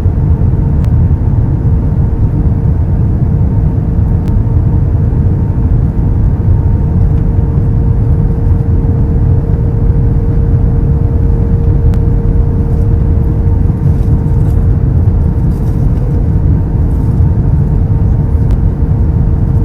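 Airbus A321 in flight: a steady low rumble from its jet engines and the airflow, with a constant hum under it.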